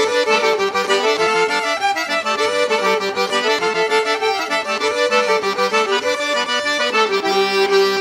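Instrumental background music with a repeating melody of held notes.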